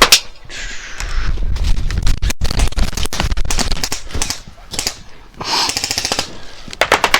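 Airsoft gunfire: several strings of rapid full-auto shots, quick clicking cracks in bursts.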